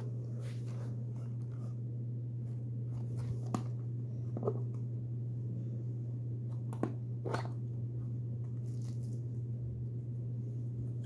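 Hands handling the clear plastic case of an N-scale model locomotive and a small cardboard box, making scattered light clicks and rustles with a few sharper clicks, over a steady low hum.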